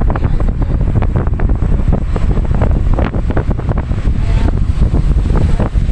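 Heavy wind buffeting the microphone at the open window of a moving train carriage: a loud, low rumble, with many irregular clicks and knocks over it.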